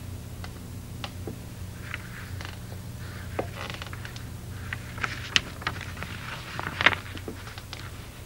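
Small scattered clicks, knocks and short rustles from a near-silent stage performance, over a steady low hum in the recording.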